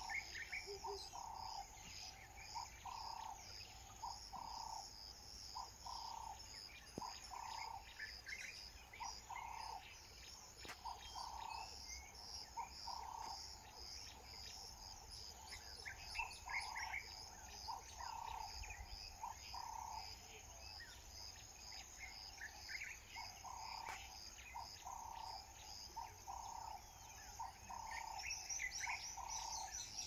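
Crickets and birds: a steady high insect trill, a short lower call repeated about once a second with occasional pauses, and scattered bird chirps.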